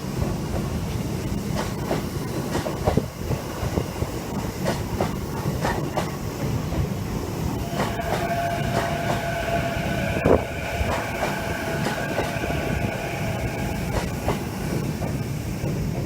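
Chuo Line electric train running slowly, its wheels clacking irregularly over rail joints above a steady rumble. About halfway, several steady high-pitched tones set in for some seconds, with one sharp knock about two-thirds of the way through.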